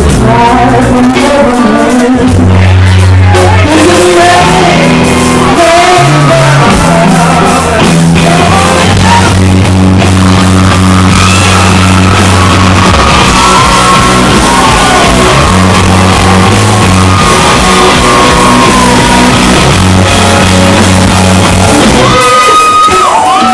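Live blues-rock band playing a slow number: electric guitars, bass guitar and drums, with a wailing high lead line bending over sustained bass notes. Near the end the bass and drums drop out beneath one held high note.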